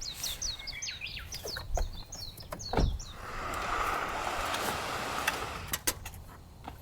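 A bird calling a rapid series of short, high, falling chirps for the first two or three seconds, then a soft rushing noise that swells and fades over about three seconds, with a few sharp clicks scattered through.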